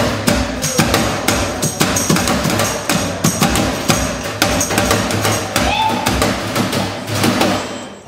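Drumsticks beating fast on the metal case of a Magic Chef microwave oven played as a drum, a dense run of strikes as part of live music.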